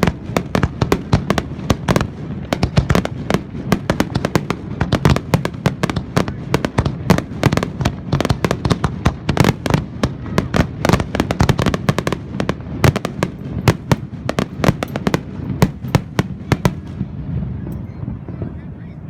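Aerial fireworks in a dense finale barrage: rapid, overlapping bangs and crackles, many each second, over a continuous low rumble. The barrage eases slightly near the end.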